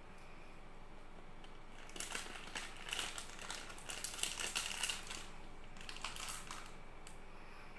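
Thin clear plastic wrapper crinkling as fingers handle it, in a burst from about two seconds in to about five seconds, with a shorter bout around six seconds.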